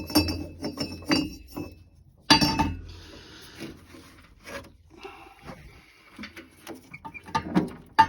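Metal boiler heat-exchanger baffles clinking and scraping as they are fitted back into place: a string of light knocks, a louder knock about two seconds in, and a stretch of scraping around three to five seconds.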